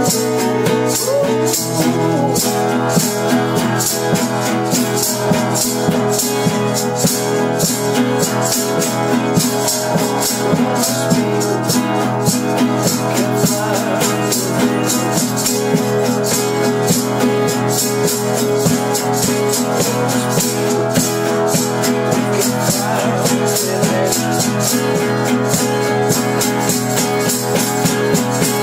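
Live band playing an acoustic and an electric guitar, with a maraca shaking a steady rhythm over the strummed chords.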